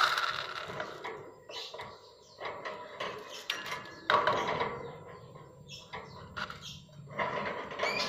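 Rice grains being handled and dropped into a small plastic feed cup against a wire cage, in irregular rustling, clattering bursts, loudest at the start, about three to four seconds in, and near the end.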